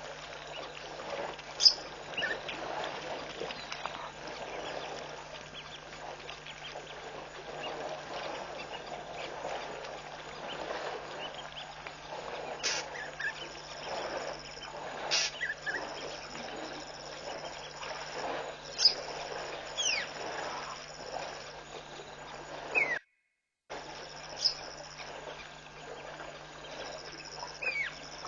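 Waterhole ambience of an elephant herd drinking, heard as a constant noisy murmur, with birds giving short, sharp calls that fall in pitch every few seconds. A steady low electrical hum runs underneath, and the sound drops out for about half a second near the end.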